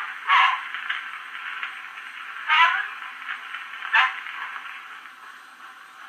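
Cylinder phonograph playing back the 1890 recording of Florence Nightingale's spoken voice: faint, narrow-sounding speech under heavy steady surface hiss, with three louder bursts, growing quieter over the last couple of seconds.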